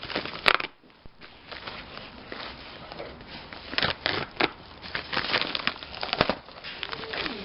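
Mail packaging being handled and torn open by hand: crinkling and crackling, with sharp louder rips about half a second in, around four seconds and around six seconds.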